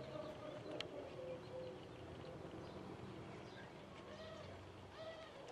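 Birds calling faintly, a run of short rising-and-falling calls that grows busier in the second half, over a low steady background hum, with a light click about a second in.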